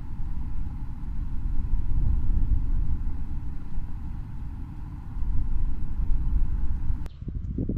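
Kawasaki KZ900 air-cooled inline-four engine running, its loudness swelling and easing as the revs rise and fall; the sound cuts off abruptly about seven seconds in.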